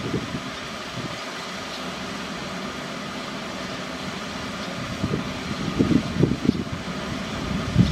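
Steady mechanical hum and hiss of the surroundings, with uneven low rumbling swells from about five seconds in.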